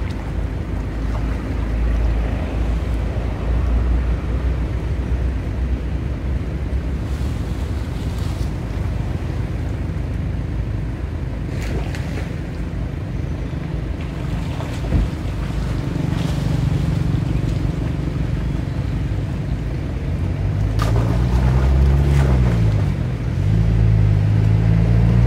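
Steady low rumble, then a motor vehicle engine humming louder from about 21 s in, its pitch rising and falling near 22 s before holding steady.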